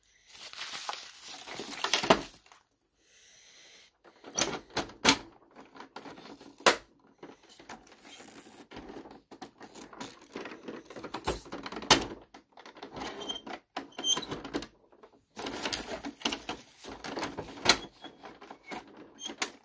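Plastic toy garbage truck being worked by hand: rustling of trash being loaded in, then irregular sharp clicks and rattles of the plastic compactor mechanism as it packs the trash down.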